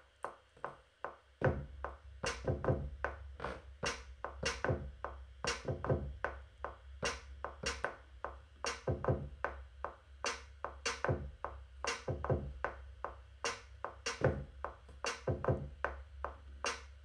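Drum-machine beat played live on a Maschine Mikro Mk3's pads, with Maschine 2's Air Bag Kit kick and snare samples: deep kicks that fall in pitch and sharp snare hits. A metronome clicks at 150 BPM alone for about the first second and a half, then keeps time under the beat.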